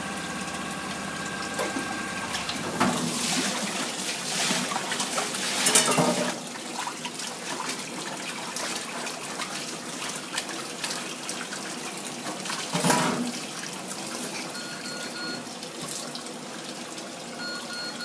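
Tap water running into a steel sink while boiled noodles are rinsed and rubbed by hand in a metal strainer, with louder splashing about six and thirteen seconds in. A steady kitchen-machine hum with faint whining tones stops about two seconds in.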